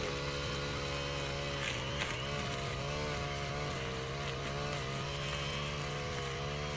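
Backpack brush cutter's small petrol engine running at high speed while cutting grass and weeds, its pitch dipping and recovering slightly as the cutting head meets the growth.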